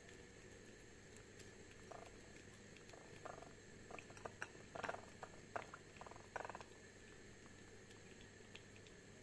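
Kitten eating wet food from a saucer: a run of soft, short chewing and smacking sounds, bunched in the middle few seconds.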